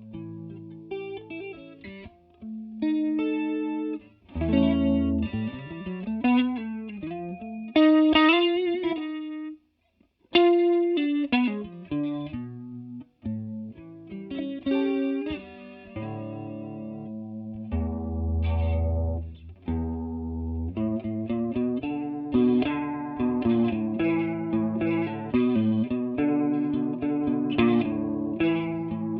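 Electric guitar played through a TC Electronic Corona Mini chorus pedal, mixing chords and single-note lines with the chorus's wavering shimmer on the tone. It pauses briefly about ten seconds in, and heavier low notes ring out a little past halfway.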